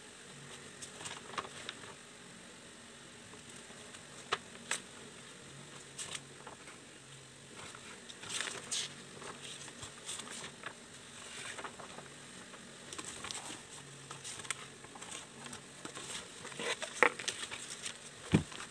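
Paper sheets of a printed school module being handled and turned: scattered soft rustles and light taps, with a sharper tap near the end.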